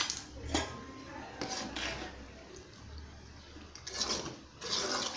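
A spoon clinking and scraping against a cooking pan of chicken gravy in a run of separate strokes, as salt is added and stirred in.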